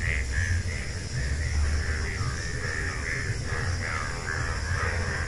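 An animal calling over and over in short, harsh notes, about two to three a second, over a steady low rumble.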